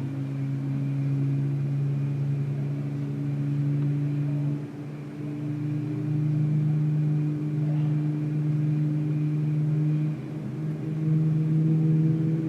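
An engine running with a steady low hum, which drops briefly twice, about four and a half and ten seconds in, and rises a little in pitch near the end.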